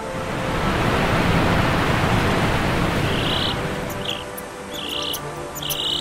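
Rushing water of a small rainforest waterfall swells up and fades away over soft background music. In the second half come several short, high, buzzy calls.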